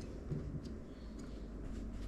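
A few faint, light clicks of hands handling computer parts over a low steady hum.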